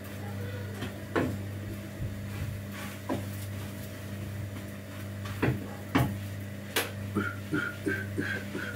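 A spatula knocking and scraping in a frying pan during stirring, a few separate knocks spread out, then a quicker run of light clicks near the end, over a steady low hum.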